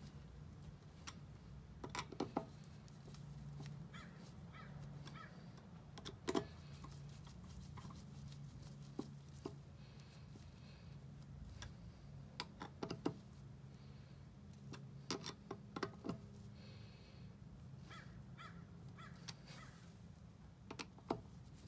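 Scattered clicks and taps of a screwdriver turning and seating the cylinder-head screws on an oilless pancake air compressor, over a low steady hum.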